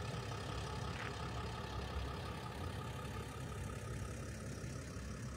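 Low, steady rumble of a distant motor vehicle engine running, with a faint hum that fades out about halfway through.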